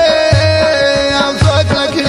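A Kakari Pashto ghazal song: a man singing long held notes over instrumental accompaniment, with a deep drum beat about once a second.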